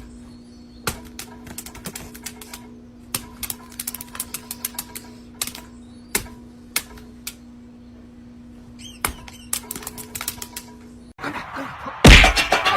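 Irregular sharp clicks and taps, some in quick clusters, over a steady hum, then a sudden loud burst of noise near the end.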